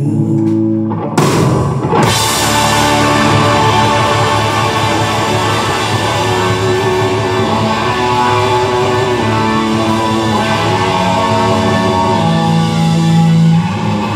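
Live rock band playing an instrumental passage on electric guitars, drum kit and Hammond organ, with the singer's last sung word at the very start. A loud crash comes in about a second in, and the full band then plays on steadily.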